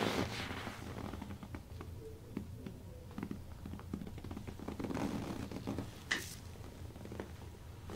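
Soft rustling and scratching of hands rubbing and pressing over skin and clothing during a back and neck massage, with a couple of louder brushes near the start and about six seconds in, over a steady low room hum.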